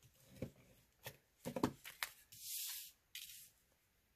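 Cardstock being handled: soft taps and rustles as a paper panel is pressed down onto a card front. Then comes a short scraping hiss of card sliding across the work mat about halfway through, and a briefer one just after.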